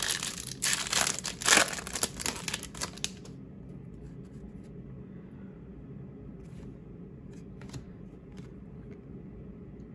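Foil trading-card pack wrapper crinkling and tearing open for about three seconds, then only a steady low hum with a few faint clicks.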